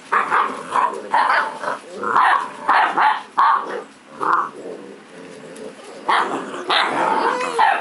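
Puppies barking in play: a run of short barks, a lull about halfway, then more barking near the end.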